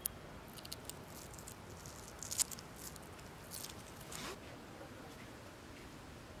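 A squeegee spreading resin over fiberglass cloth on a wooden surfboard: several faint, short scraping, squishing strokes, the loudest about two and a half seconds in.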